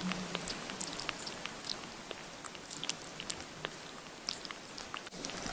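Young kitten suckling milk from a syringe feeder: quick, irregular wet smacking clicks of its mouth and tongue on the feeder tip.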